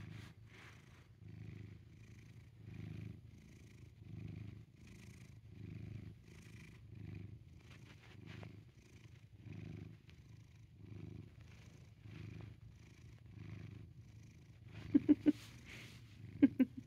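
Domestic cat purring steadily, the purr swelling and fading with each breath in and out. A few short, loud clicks come near the end.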